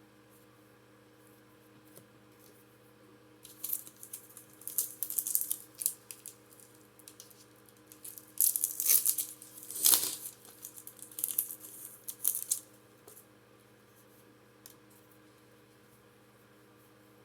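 Foil wrapper of a Pokémon booster pack being torn open and crinkled, in a run of short rustling bursts that are loudest near the middle.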